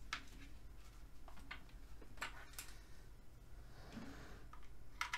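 Scattered faint clicks and light taps of a hard plastic speaker housing being handled and shifted on a desk.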